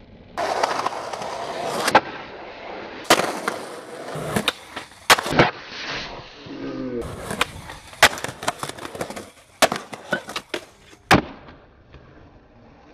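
Skateboard wheels rolling over pavement, broken by a series of sharp cracks of the board's tail popping and the deck slapping down on landings.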